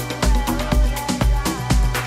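House dance music from a DJ set. A steady four-on-the-floor kick drum beats about twice a second under crisp hi-hats, with a gliding synth or vocal line over it.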